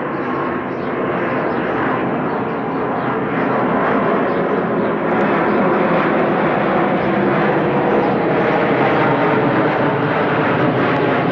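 Airliner engines running in a loud, steady roar that grows a little louder partway through, as a passing plane comes closer.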